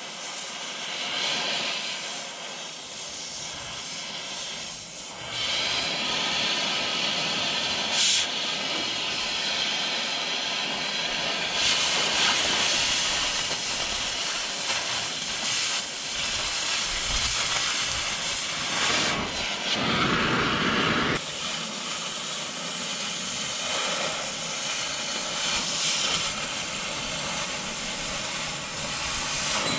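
Oxy-fuel cutting torch hissing steadily as it cuts through the steel spring bracket of a snow plow, getting louder about five seconds in, with a brief sharp crack near eight seconds.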